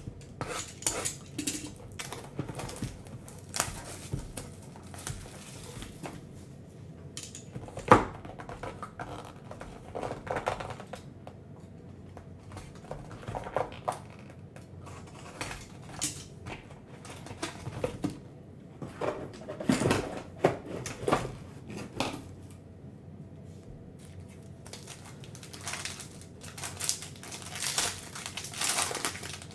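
Hands opening a sealed cardboard trading-card box: a blade cutting the seal, the box handled with scattered clicks and taps and one sharp knock about eight seconds in, then crinkling of the foil pack wrapper as it is torn open near the end.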